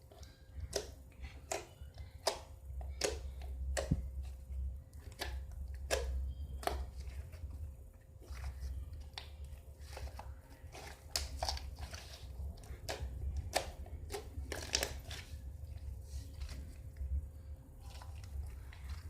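Mixed homemade slime being stretched and squished by hand, giving a string of short, irregular sticky clicks and pops, about one or two a second.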